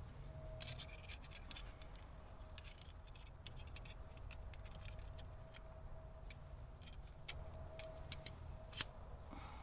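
Small stainless-steel parts clinking and jingling as they are handled, with a few sharper clinks near the end.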